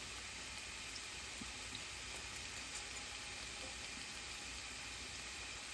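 Cubed firm tofu sizzling gently in a little liquid in a nonstick frying pan: a steady, quiet hiss with a few faint ticks.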